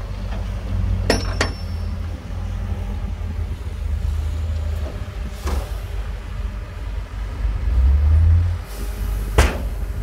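Heavy diesel earthmoving machinery running with a steady low rumble, broken by sharp knocks: two close together about a second in, one midway, and the loudest near the end.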